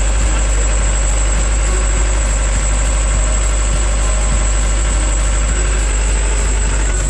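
Loud, steady drone of running machinery in a yacht's engine room, with a thin high whine held over it.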